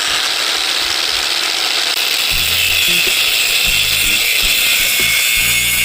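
Ryobi angle grinder with a masonry cutting blade running at full speed and cutting into a brick: a loud, steady high-pitched grinding whine.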